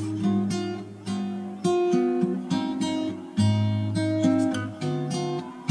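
Background music: an acoustic guitar picking a melody, with each plucked note ringing out and fading.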